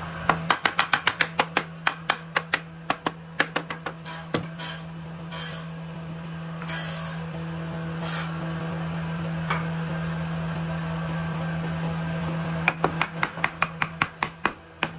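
A hand-held wooden block used as a mallet, knocking against the edge of a solid-wood panel to drive the joint tight: rapid sharp blows, about four to five a second. About four seconds in, the blows give way to a few scattered knocks and soft rubbing. The rapid knocking starts again near the end.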